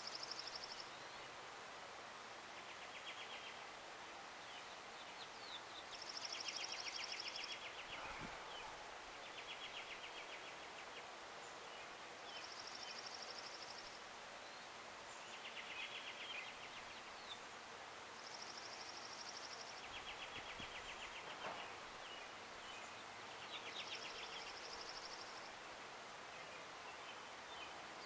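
Wild songbirds singing trilled songs over a steady outdoor hiss. A high, even trill of rapid notes repeats about every six seconds, and a lower, buzzier trill sounds between its repeats.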